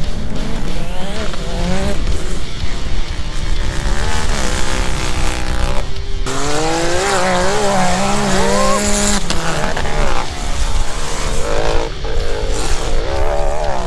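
Several UTV race cars' engines revving hard, their pitch climbing and dropping through the gears as they race over a dirt track. The sound changes abruptly a few times.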